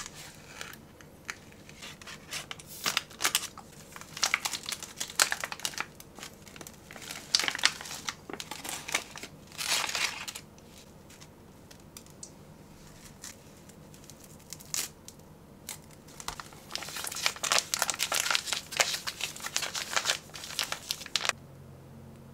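Foil-laminate MRE ration pouches crinkling and tearing as they are opened by hand: first the crackers pouch, then, after a quieter gap in the middle, the small peanut butter packet, in bursts of crackling rustle.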